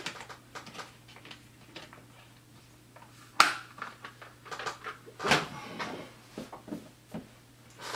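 Hands handling small tools and craft foam on a work table: scattered light clicks, taps and rustles, with one sharp click about three and a half seconds in and another near five seconds.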